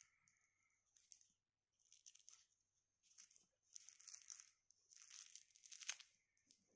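Faint rustling and crinkling of a plush fish-shaped cat toy being dragged and wiggled over bedding fabric, in several short bursts, the loudest near the end.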